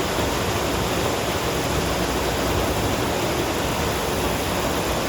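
Steady rush of water pouring over a spillway, an even hiss and rumble with no breaks.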